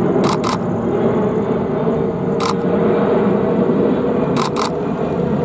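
Steady roar of a Boeing 777-200LR's twin GE90 turbofans passing overhead on approach to land, with a steady tone running through it. Camera shutter clicks over it: a quick double click near the start, a single click in the middle, and another quick double near the end.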